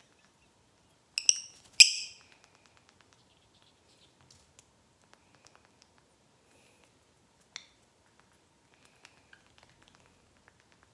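Pet lovebirds, a rosy-faced and a Fischer's, giving sharp, high chirps: two loud ones just after a second in, a single short one later, with faint light ticks in between.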